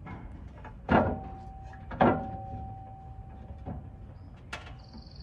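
Metal knocking against a vehicle's metal skid plate as its mounting bolts are fitted by hand: two sharp clanks about a second apart, the second ringing on briefly, then a few lighter taps.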